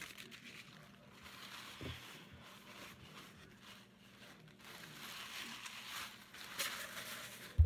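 Paper napkin rustling and crinkling as it is handled and unfolded, with a dull thump near the end.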